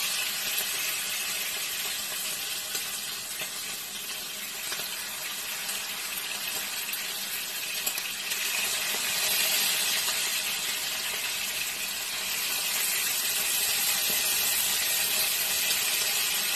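Pieces of marinated chicken sizzling in hot oil in a frying pan as they are dropped in. The steady hiss grows louder about halfway through and again near the end as more pieces go in.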